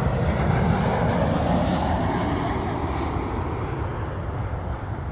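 Jet noise from a passing Boeing 747's four turbofan engines: a steady rush that slowly fades as the aircraft moves away.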